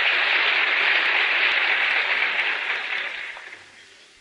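Audience applauding: the clapping is dense and steady, then dies away about three and a half seconds in.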